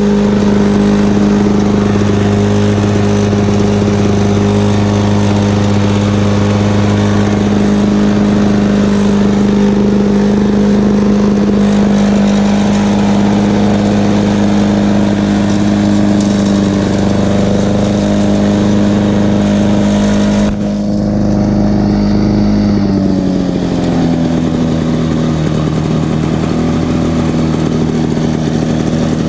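A 1986 Lawn-Boy 8461 Commercial mower's two-stroke engine running steadily at speed. Its pitch drops about three-quarters of the way through, then climbs back up near the end.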